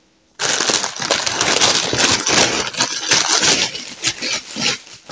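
Baguettes being slid into a printed bread bag, the bag rustling and crinkling in a dense crackle that starts about half a second in and eases off near the end.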